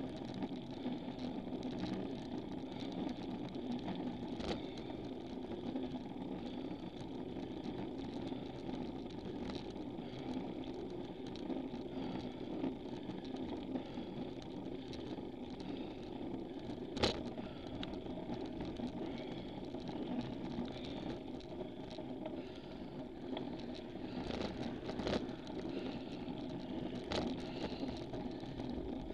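Road bicycle riding noise heard through a camera mounted on the bike: a steady rumble of tyres and drivetrain, with scattered small clicks and rattles and one sharper click a little past halfway.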